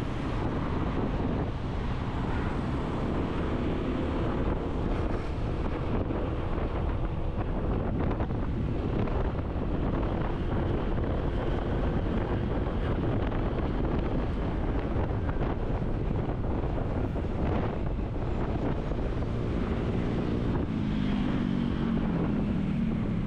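Heavy wind buffeting on the microphone over the running engine of a moving road vehicle. Near the end an engine's pitch falls.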